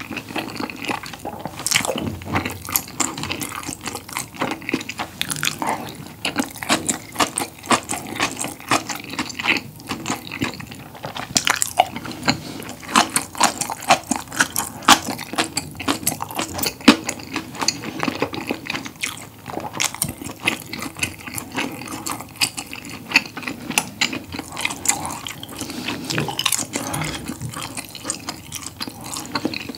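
Close-miked chewing of a mouthful of rolled-up whole combination pizza: a dense, irregular run of small clicks and smacks from the mouth.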